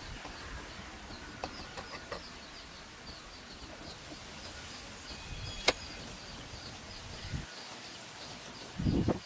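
A steady run of short, high chirps, about three or four a second, from a small animal. About halfway through there is one sharp click, and there are a few low thumps near the end.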